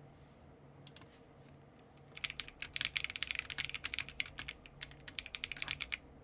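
Typing on an Akko ARC 75 V2 mechanical keyboard with stock, unlubed Akko CS Ocean Blue tactile switches and cream keycaps. A few faint clicks, then rapid keystrokes start about two seconds in and run on until a short pause near the end.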